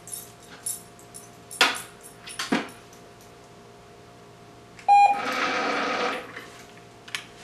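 Treat & Train (Manners Minder) remote treat dispenser: a short electronic beep about five seconds in, followed at once by about a second of its motor whirring as a treat rattles out into the tray. Two faint clicks, about a second apart, come before it.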